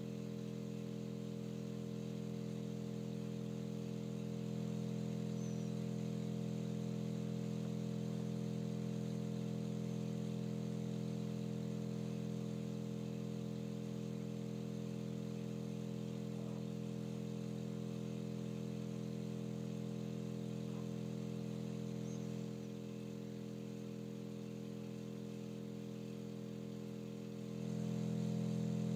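Steady low electronic drone made of several stacked tones, the kind of sound fed to a cymatics rig to set up ripple patterns. It gets a little louder about four seconds in, drops back about three quarters of the way through, and swells again near the end.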